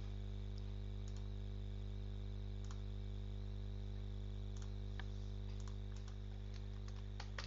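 A few scattered computer mouse clicks and keyboard keystrokes over a steady low hum.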